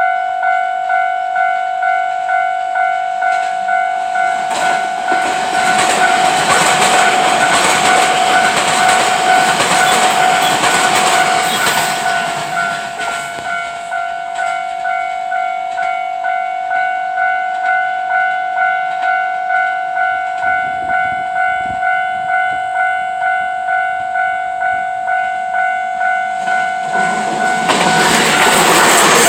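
Level crossing warning bell ringing steadily at about one and a half strikes a second as JR 227 series six-car electric trains pass. The rush of one train's wheels on the rails fills roughly 5 to 12 seconds in, and a second, louder train begins passing near the end.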